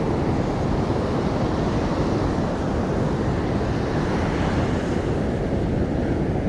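Steady noise of surf breaking on a beach, mixed with wind buffeting the microphone.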